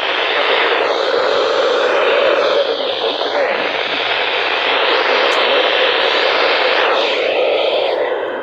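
Loud, steady static hiss from a weather-band radio receiver on a weak or faded signal.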